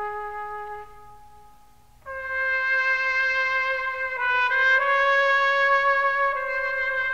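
Background music of long held brass-instrument notes. The first note fades out over the first two seconds, then a louder, higher note comes in and moves through a few slow pitch changes.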